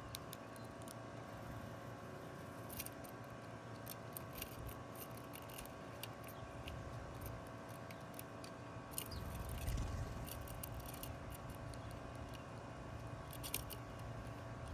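Irregular sharp little clicks and snips, scattered a few per second, over a steady faint hum. A brief low rumble comes about two-thirds of the way through.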